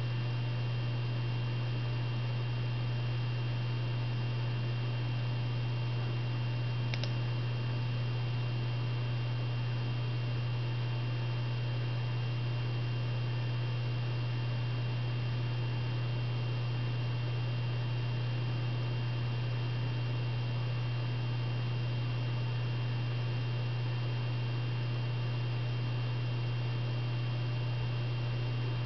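Steady low electrical hum with a faint high whine over a light hiss, unchanging throughout, and one faint tick about seven seconds in.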